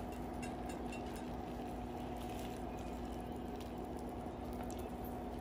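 Sticky chocolate-coated biscuit mixture being scooped from a pan into a glass dish, giving faint scattered wet clicks and squelches over a steady background hum.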